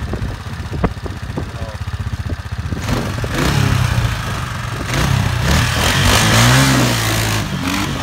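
Kawasaki Bayou KLF400 ATV's single-cylinder four-stroke engine idling with a fast, pulsing beat, then revving up and down hard from about three seconds in. A loud rushing noise runs over the revs until it drops back near the end.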